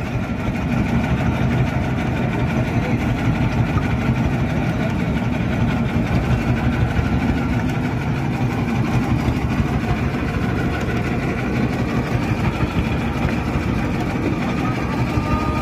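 Boat engine idling steadily, a continuous low rumble.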